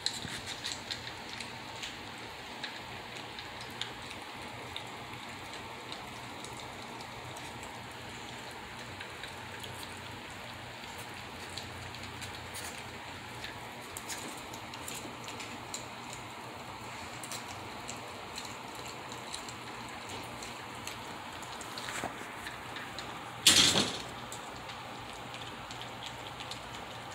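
A litter of mini dachshund puppies eating dry kibble from a stainless steel saucer bowl: a steady patter of crunching and small clicks of kibble on metal. Near the end there is one short, much louder knock.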